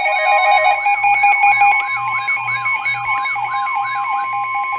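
Emergency Alert System attention signal on a radio broadcast: a loud steady two-tone alarm with a wailing tone layered over it that rises over and over about once a second. It announces a severe thunderstorm warning.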